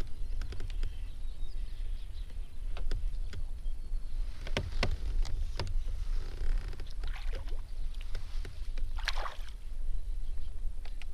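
Small clicks and knocks from gear on a fishing kayak, clustered about four to six seconds in and again near nine seconds, over a low steady rumble.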